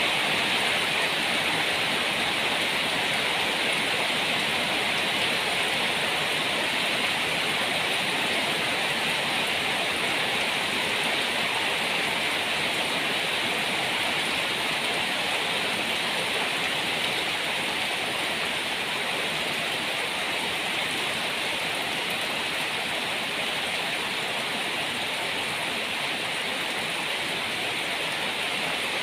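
Heavy rain falling in a steady downpour: an even, unbroken hiss.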